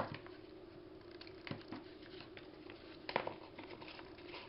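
Hands pressing a glued fabric trim down onto a journal page: scattered soft taps and rustles, with a sharper tap about three seconds in.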